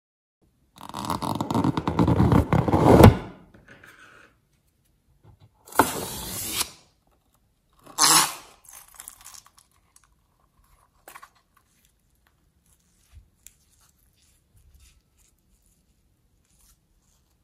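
Rubber balloon filled with slime being handled and squeezed over a glass bowl: a loud rubbing, scraping run of about two seconds, two shorter scrapes a few seconds later, then only faint small wet sounds as the slime oozes out of the balloon.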